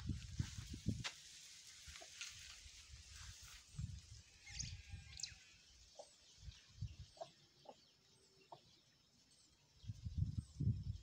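Faint backyard sounds: small birds chirping briefly and hens clucking now and then. Irregular low rumbles on the microphone come near the start and again near the end.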